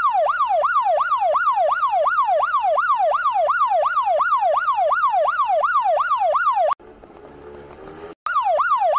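Electronic ambulance siren, a rapid repeating wail that sweeps down in pitch about three to four times a second. It cuts off about seven seconds in and starts again after a quieter second and a half.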